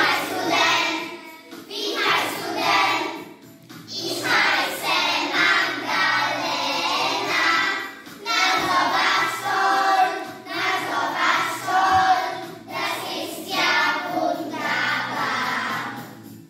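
A class of young children singing a German song together in short phrases, over a quiet instrumental backing. The singing stops just before the end.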